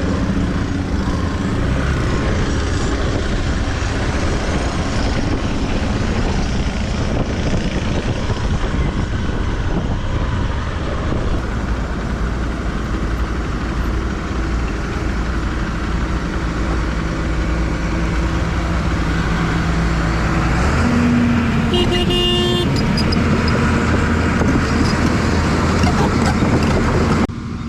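Hero XPulse 200 motorcycle's single-cylinder engine running under way on rough ground, its pitch stepping up and down with the throttle. A short horn toot comes about two-thirds of the way in.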